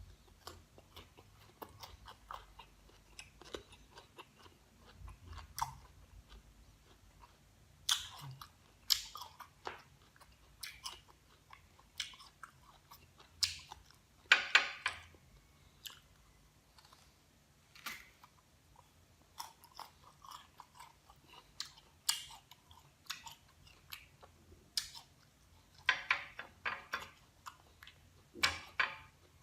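Crisp green guava being bitten and chewed close to the microphone: irregular crunches, with louder runs about halfway through and near the end.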